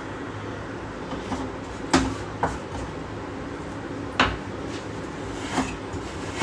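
A few separate sharp clinks and knocks of a spoon against a container and glass as ice cream is scooped onto the lassi. The loudest come about two seconds in and about four seconds in.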